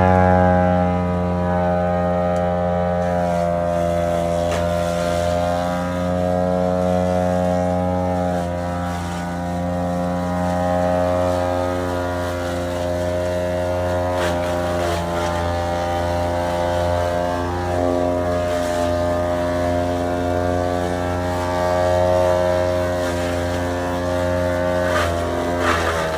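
Jo Beau M600 Gorilla wood chipper running steadily, its engine note dipping briefly several times as it takes load, with sharp cracks and snaps of wood being chipped.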